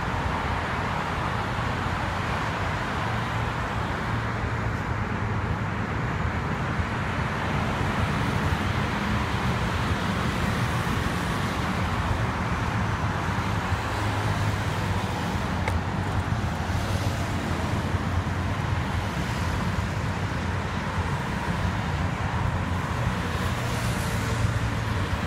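Steady road traffic noise: cars and other vehicles running along a multi-lane road, with a constant low rumble.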